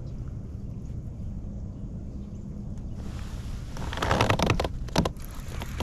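Wind buffeting the microphone, then a rising hiss and a loud scratchy burst about four seconds in, followed by a sharp knock, as the angler works his baitcasting rod and reel.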